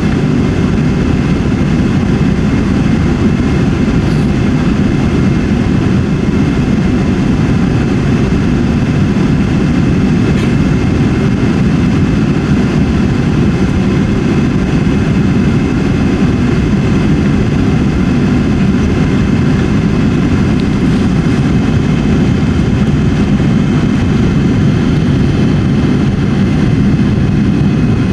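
Jet airliner cabin noise: a steady, even rumble of the engines and airflow, with a few faint steady high tones above it.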